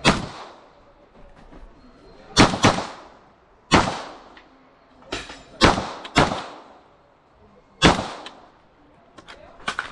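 Ferfrans 9mm pistol-caliber carbine firing about eight shots in an uneven rhythm, some in quick pairs, each with a short echo. Smaller ticks follow near the end.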